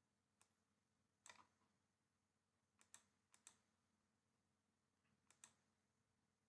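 Near silence broken by a handful of faint computer mouse clicks, several in quick pairs, spread over a few seconds.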